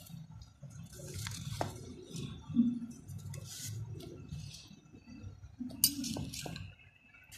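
Cut paper shapes rustling as they are handled and laid down, with a few light clicks and knocks.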